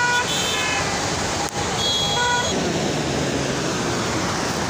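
Steady rush of a swollen, flooding river, with two short high-pitched calls or tones over it, one at the start and one about two seconds in.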